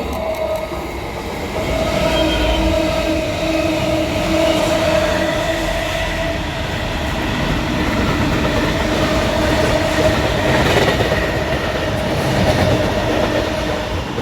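A train passing close by, its wheels rattling on the rails over a steady, even rumble, with a constant whine held through the pass.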